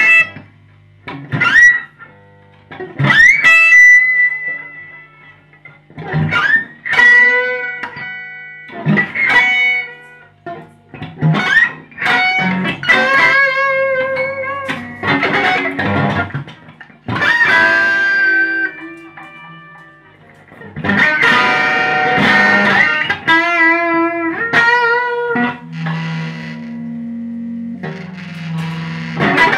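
Electric guitar played freely through an amplifier: sharp struck notes and chords that bend upward in pitch, with short gaps between them. Later come longer held notes with a wavering vibrato, then low sustained notes near the end.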